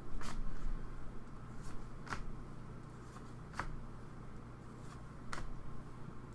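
Trading cards being handled and flipped through one at a time, with soft rustling and a sharp card snap every second and a half to two seconds, over a low steady hum.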